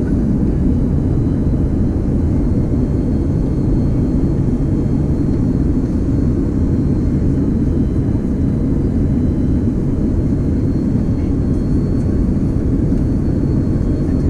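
Steady cabin noise inside an Airbus A330-200 on approach: an even, deep rumble of the engines and airflow heard from a window seat near the wing, with a faint steady high whine above it.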